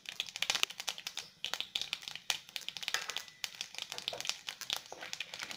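Mustard seeds, chana dal and urad dal crackling and sizzling in hot sesame oil in a kadai, the tempering stage of a South Indian stir-fry. It is a rapid, irregular patter of small pops.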